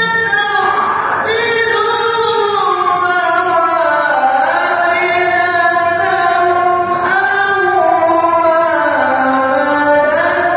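A qari's high, shrill voice reciting the Quran in melodic chant style into a handheld microphone. It sings long held phrases with slow pitch glides and wavering ornaments, without breaks.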